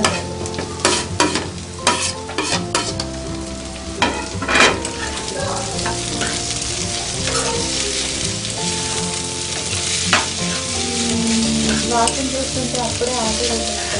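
Chopped ivy gourd (dondakaya) tipped into hot oil in a non-stick frying pan and stirred with a metal spoon: a steady sizzle, with clicks and scrapes of the spoon against the pan, most of them in the first few seconds.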